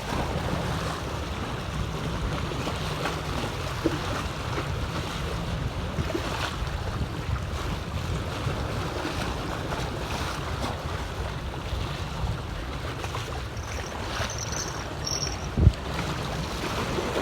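Steady wind on the microphone and sea water around a small fishing boat, with a single loud low thump near the end.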